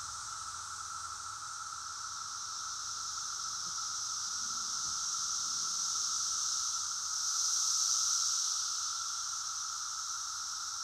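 Chorus of Brood X periodical cicadas (Magicicada): a continuous, steady drone at two pitches, a lower buzzing whine and a higher hissing band, swelling slightly past the middle.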